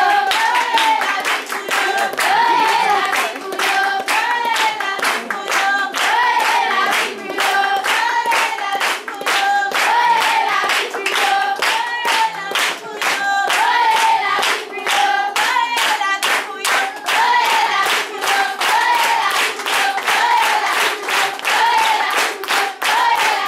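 A group of children and adults singing a song together while clapping their hands in time, a steady beat of claps under the singing.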